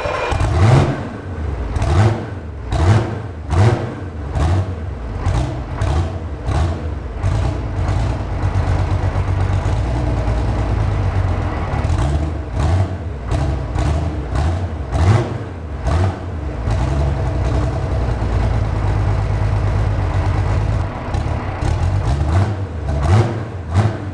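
Foden FD6 six-cylinder two-stroke diesel engine running just after starting, its throttle blipped again and again in short revs. It settles into a steadier run for a few seconds past the middle, then is blipped again near the end.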